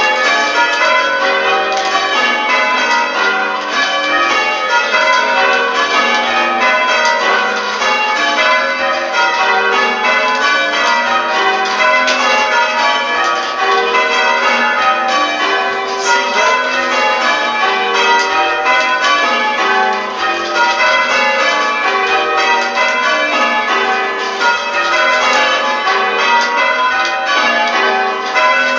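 A ring of church tower bells in change ringing, swung full circle, with an even run of overlapping strokes and no break.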